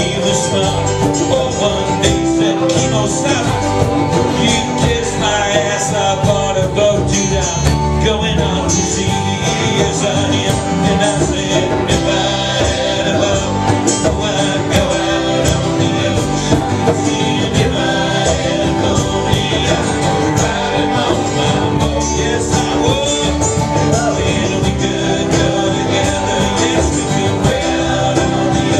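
A live band playing a country-style song with a steady beat, picked up by a small handheld camera's microphone.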